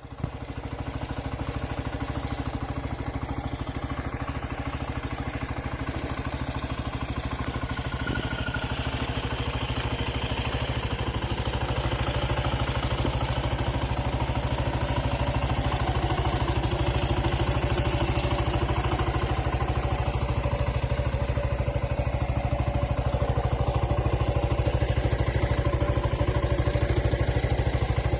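Zontes U1 motorcycle engine idling steadily at its exhaust. The note holds an even pitch throughout, with no revving.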